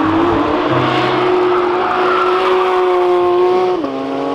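Race car engine sound: a steady, high engine note that creeps slightly upward, then drops sharply in pitch about four seconds in.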